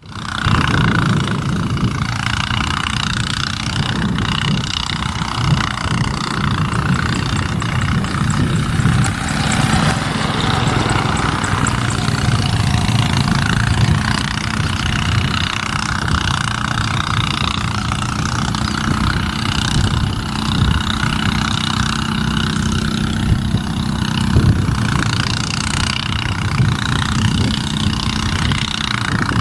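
Diesel locomotive engine running steadily as the train approaches along the line.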